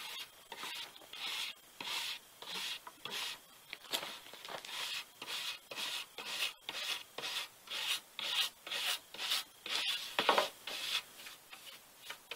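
Hand brush scrubbing back and forth along a charred cedar board, brushing off the burnt surface in the shou sugi ban finish, in even strokes about two a second.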